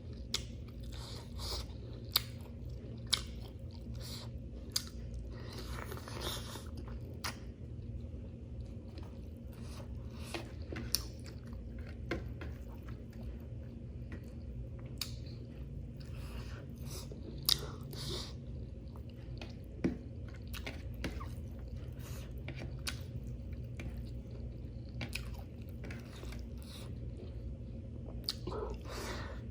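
Close-miked eating sounds: steady chewing and mouth sounds, with sharp crisp crunches scattered throughout, over a steady low hum.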